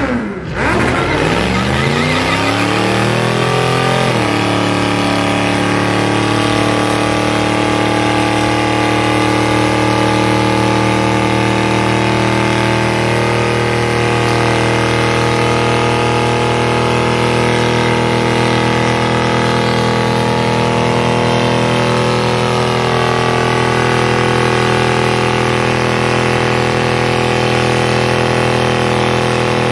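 Burnout: a car engine revs up over about four seconds, then is held at steady high revs with the driven tyres spinning on the pavement.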